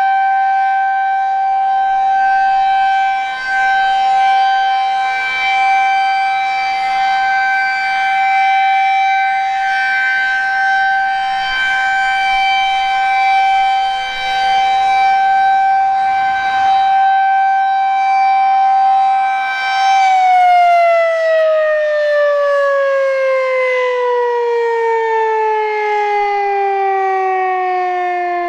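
Federal Signal 2001-SRN electromechanical outdoor warning siren sounding a steady tone. About twenty seconds in it is shut off and winds down, its pitch falling smoothly as the rotor coasts.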